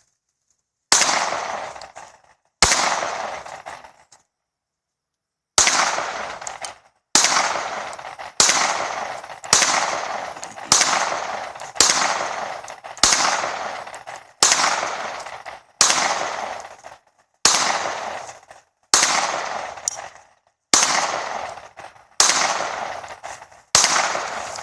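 Firearm shooting single shots at a steady pace, about sixteen in all and roughly one every second and a half, with a pause of a couple of seconds after the first two. Each sharp crack trails off in a long fading echo.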